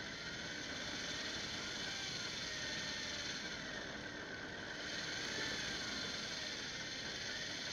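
Electric deep-drop fishing reel's motor and gears running as it winds line, a whine that rises and falls in pitch every second or two, over a steady hiss of sea and boat noise.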